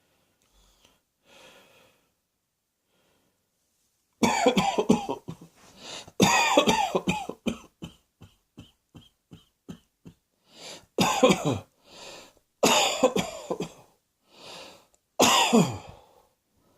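A person coughing in repeated fits: quiet at first, then loud bouts from about four seconds in, a run of short quick hacks in the middle, and more bouts, several of them trailing off with a falling pitch. Breaths are drawn between the bouts.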